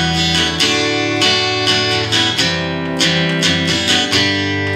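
Acoustic guitar strummed in a down-up pattern, with a fresh strum every third to half a second and several chord changes as it moves through an E minor, D, C, G progression.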